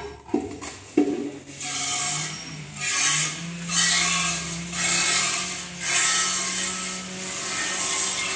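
Hand-milking into a metal pail: streams of buffalo milk squirting into the bucket in a regular rhythm, roughly one spurt a second. Two knocks from the pail in the first second.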